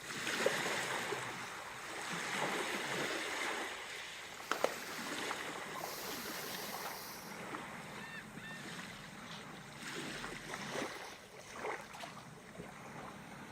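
Ocean waves washing in, a steady rush of surf that swells and eases.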